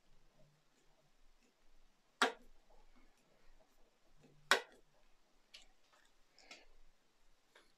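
Handling clicks and ticks from small model-car parts and tools being worked by hand: two sharp clicks a little over two seconds apart, with fainter ticks between and after.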